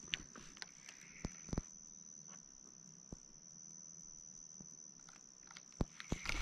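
A faint, steady, high-pitched insect trill, with a few scattered soft clicks.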